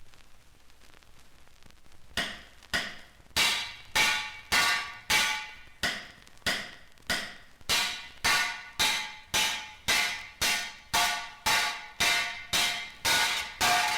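Hammer striking metal again and again, each blow ringing, at roughly two strokes a second, starting about two seconds in after a faint hiss and gradually speeding up a little.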